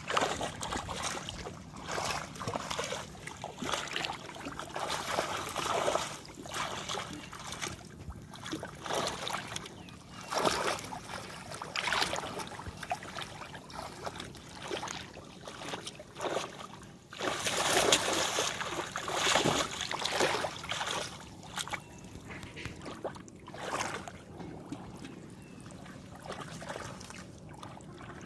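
Shallow water splashing and sloshing in irregular bursts as hands grope through it for fish, with a louder run of splashes about two-thirds of the way in.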